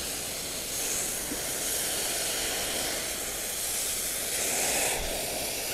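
Steam hissing steadily as a hot clothes iron presses on a water-soaked cloth laid over wood, steaming the wood to soften it for bending. The hiss swells slightly twice and eases a little near the end.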